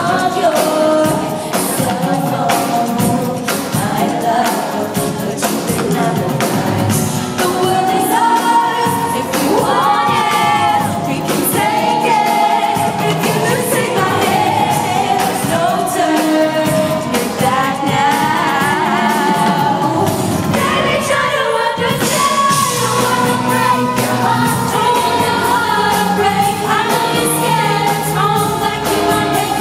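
A live pop song played over a venue's sound system: a female lead vocal singing and holding notes over a band with a steady drum beat.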